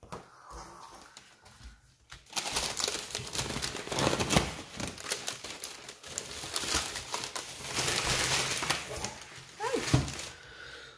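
Packaging crinkling and rustling as it is handled, starting about two seconds in.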